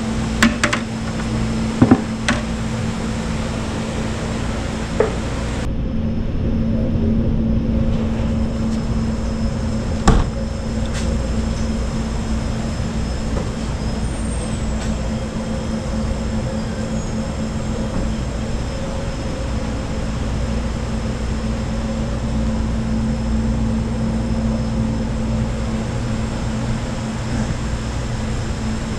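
Steady electric hum of refrigeration machinery, the commercial bait freezers' compressors and fans running. A few sharp knocks ring out near the start and once about ten seconds in.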